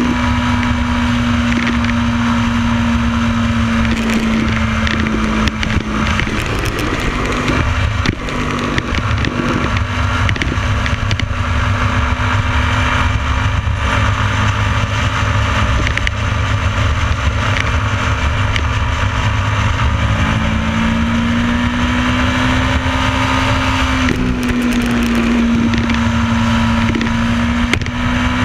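Motorcycle engine running at road speed under a heavy rush of wind over a bike-mounted camera. The engine note holds steady, eases off about six to eight seconds in, and climbs again around twenty seconds in as the bike accelerates.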